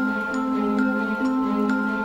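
Instrumental music: a slow, gentle melody of struck notes, a new one about every half second, over held lower tones.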